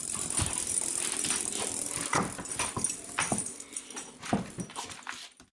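A dog making a few short, sharp sounds over a busy rattling, clattering noise that cuts off abruptly at the end.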